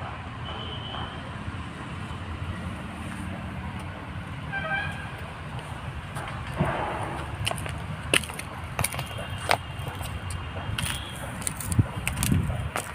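Steady low rumble of distant road traffic, with a short horn-like toot about four and a half seconds in and scattered sharp clicks and taps in the second half.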